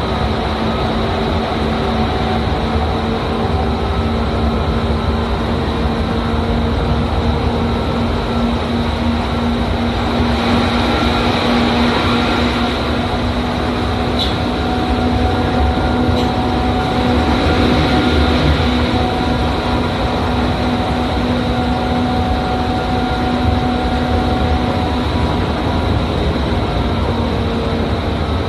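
Tokyu 8500 series electric train running, heard from inside the passenger car: a steady rumble of wheels on track with a constant hum under it. The noise swells twice, briefly, partway through.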